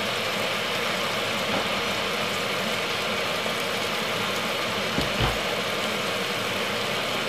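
Steady hiss of a pot of chicken stew with vegetables cooking uncovered on the stove, with one soft knock about five seconds in.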